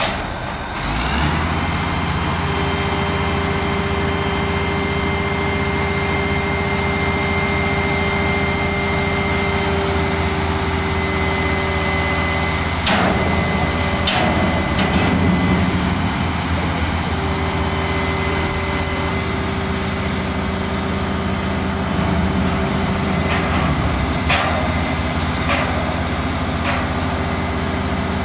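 Mobile crane truck's engine revving up about a second in and then running steadily under load while lifting the steel sailboat hull, with a steady high whine over it. A few sharp knocks come in the middle and near the end.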